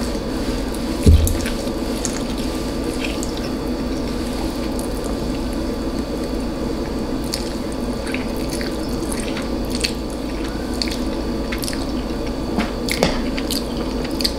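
Close-up wet eating sounds: chewing and licking with scattered small lip and tongue clicks, heard as licking rather than slurping. A single loud knock about a second in, over a steady low hum.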